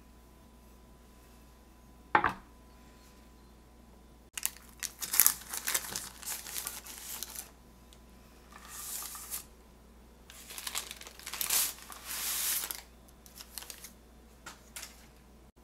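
Baking parchment paper crinkling and rustling in several bursts as it is handled and pulled from under a batch of baked bread rolls, after a single sharp knock about two seconds in.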